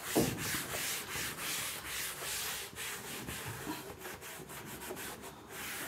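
Chalkboard duster wiping chalk off a blackboard in quick repeated back-and-forth strokes.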